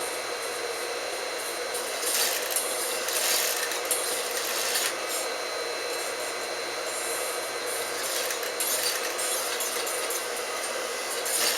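Sewing machine running, with a steady motor hum and a few short spells of louder stitching, about two seconds in, around three to five seconds in, near eight to nine seconds, and again near the end.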